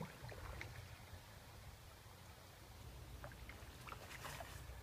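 Faint canoe paddling on calm water: the paddle dipping and dripping, with scattered light clicks and splashes over a low steady rumble.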